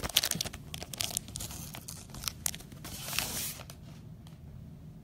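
Clear plastic card sleeves crinkling and rustling as they are handled, with a sharp knock at the start and scattered clicks, dying away after about three and a half seconds.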